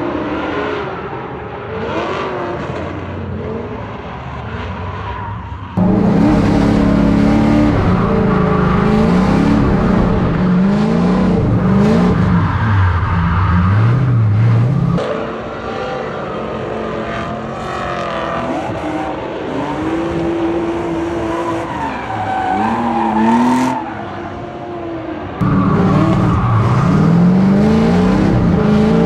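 Drift car engine revving up and down hard through slides, with tyre squeal. For the first six seconds it is heard more distantly from the trackside, then it gets suddenly much louder from inside the car.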